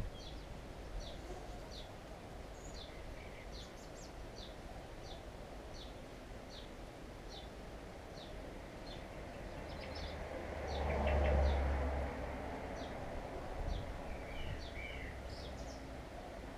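Daytime outdoor ambience with a small bird giving a short, high chirp over and over, a little more than one a second. About ten seconds in, a vehicle passes with a low rumble, swelling and fading over about two seconds, and a second bird calls briefly near the end.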